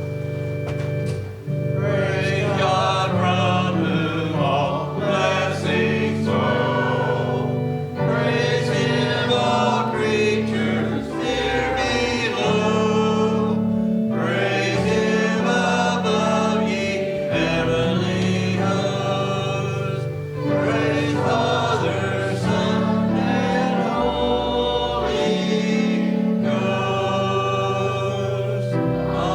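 Offertory music: singing voices over a held keyboard accompaniment. The accompaniment plays alone for the first second or two, then the singing comes in, in phrases with short breaks every few seconds.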